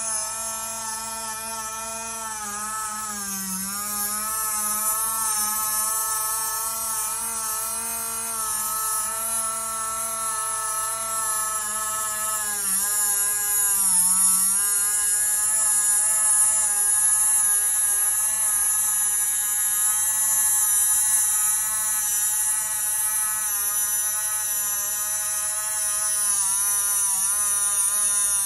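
Small USB-rechargeable rotary engraving tool running steadily as it cuts a curved carbon and balsa spar outline, a high whine over a hiss. Its pitch dips briefly a few times as it is pulled along.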